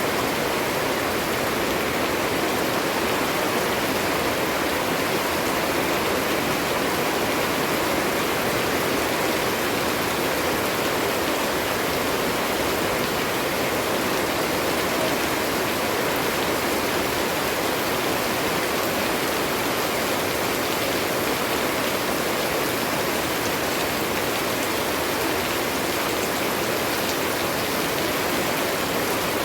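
Steady, heavy rain falling: an even, unbroken hiss with no single drops standing out.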